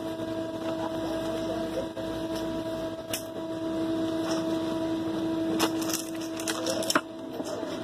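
Steady electrical hum of commercial kitchen equipment, with a few sharp clicks and knocks from hands working fried chicken on a plastic cutting board, most of them a little past halfway.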